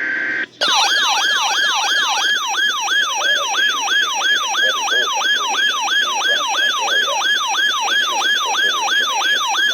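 Weather alert radio's electronic siren alarm, a falling wail repeating about three to four times a second, which signals an incoming weather warning. It starts about half a second in, right after a short steady electronic tone.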